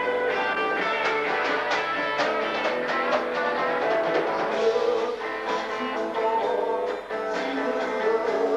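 Live rock band playing: an electric guitar strummed over a drum kit, with a blues-rock feel.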